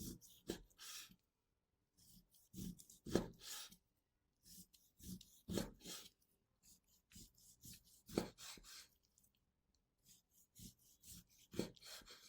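Faint knife work on a wooden cutting board: groups of short cutting and scraping strokes, a few knocks at a time, with brief pauses between groups.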